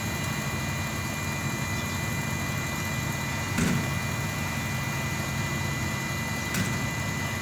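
An engine runs steadily at idle, a low rumble carrying a thin steady whine. Two brief knocks come about three seconds apart.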